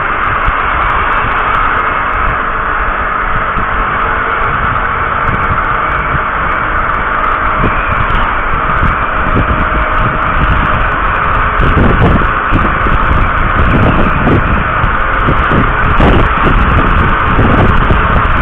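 Steady rush of wind noise on the microphone over a running vehicle while on the move, with a few gusty low thumps in the second half.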